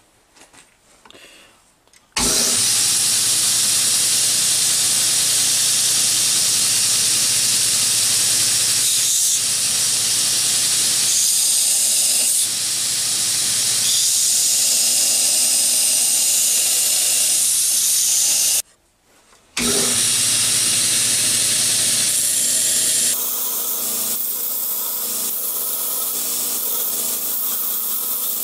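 Belt grinder running with an old steel file being ground against the belt: a steady hiss over the motor's hum. It starts about two seconds in, breaks off for about a second about two-thirds of the way through, then carries on somewhat quieter near the end.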